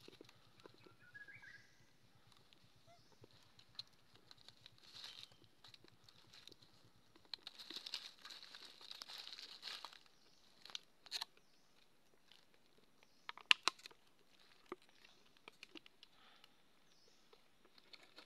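Thin plastic water bottle crinkling and clicking as a monkey bites and handles it: scattered crinkles, a longer run of crinkling about eight seconds in, and a few sharp clicks, the loudest, past the middle.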